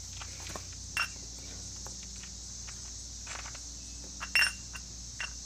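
A few light clicks and taps of small metal carburetor parts being handled and fitted while a Honda GCV160 carburetor is put back together, the loudest about four seconds in. Crickets trill steadily throughout.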